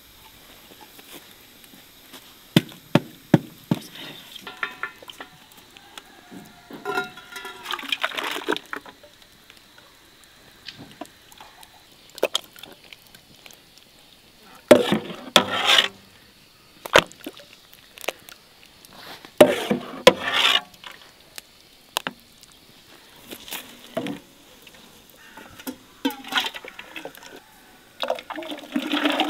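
Hot liquid ladled from a cauldron with a bowl and poured into enamel buckets: several separate splashing pours, each a second or two long, with sharp knocks of the bowl and ladle between them.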